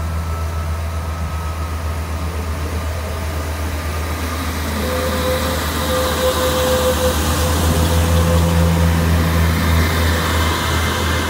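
British Rail Class 142 Pacer diesel multiple unit's underfloor diesel engine running with a steady low drone as the train pulls away, getting louder about halfway as the carriages pass close by. A thin whine comes and goes around the middle.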